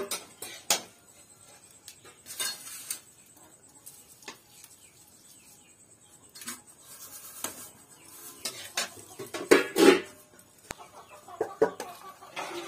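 Metal ladle and utensils clinking and knocking against an aluminium pot of pickle mix, in scattered sharp strikes. The loudest cluster comes about three-quarters of the way through.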